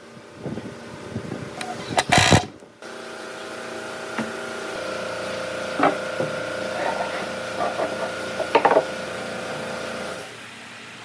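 A cordless drill runs in short bursts driving screws through a metal leg-mounting plate into a hardwood table top. After a cut, a steady hum runs under a few light wooden knocks as a wooden side table is lifted and set onto a box-shaped wooden base.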